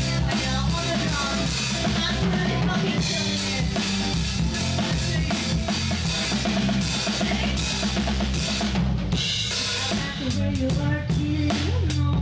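Drum kit played live in a rock band, kick, snare and cymbals loud and close, with the rest of the band's playing underneath in a steady groove.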